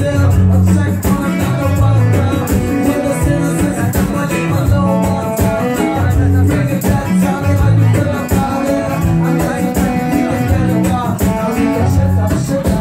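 Live band playing an upbeat song: saxophone and acoustic guitar over tambourine and a steady beat with low bass notes.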